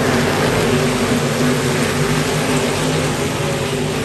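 Race car engine running steadily under a wash of noise, holding a fairly even pitch.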